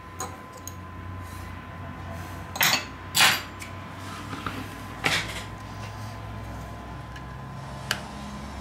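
Small metal repair tools handled on a tabletop: a few light clicks, then two louder brief metallic clatters about two and a half to three seconds in, another a couple of seconds later, and a single click near the end. A faint steady tone runs underneath.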